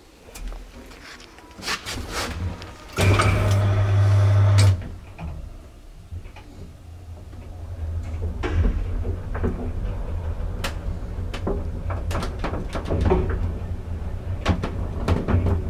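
An old passenger lift in operation. A few clicks, then a loud steady electric hum for about a second and a half, then the car travels with a steady low rumble and repeated clicks and rattles from the car and its door.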